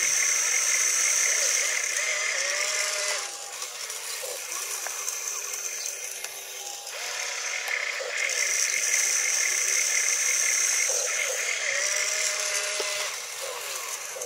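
Radio-controlled excavator's small electric motors and gearboxes whining and rattling as the arm digs and swings, with the pitch sliding up and down as the motors speed up and slow. It is louder for the first few seconds and again from about eight seconds in, with a quieter stretch between.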